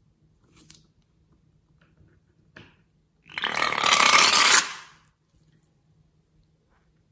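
Orange liquid squeezed out through the snipped tip of a balloon into slime, sputtering and squelching loudly for about a second and a half, preceded by a small scissors snip.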